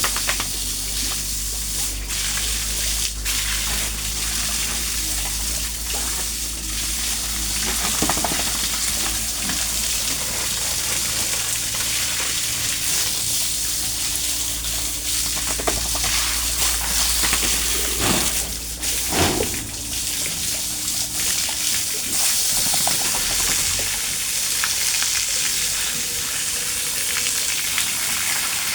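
Steady hiss of water, with a low steady hum underneath that stops about twenty seconds in, and a few short knocks.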